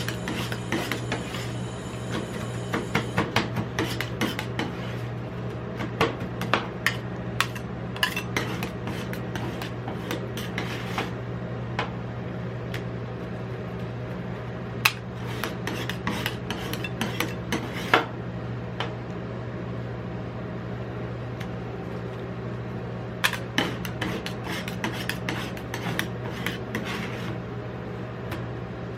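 Metal spatulas scraping, chopping and tapping on the steel cold plate of a rolled ice cream station, with two sharp knocks about halfway through. A steady low hum runs underneath.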